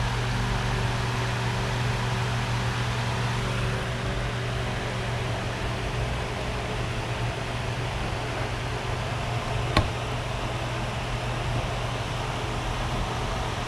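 Steady machine hum over an even hiss, like a running fan, with one sharp click about ten seconds in.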